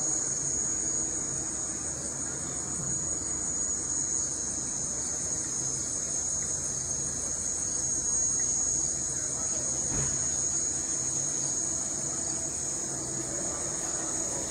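Insects chirring in a steady, high-pitched chorus.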